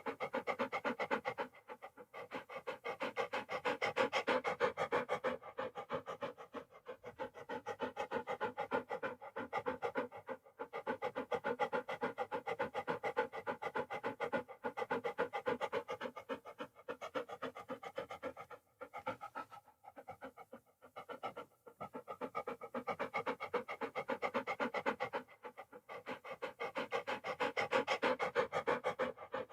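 Dog panting: rapid, even in-and-out breaths, broken by short pauses and a quieter stretch a little past the middle.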